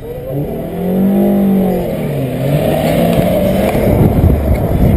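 Car engine revving: the pitch climbs and falls back over the first couple of seconds, then the engine runs hard and loud with a rougher, noisier sound to the end.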